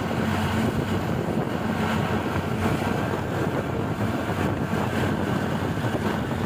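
Steady rushing wind buffeting the microphone.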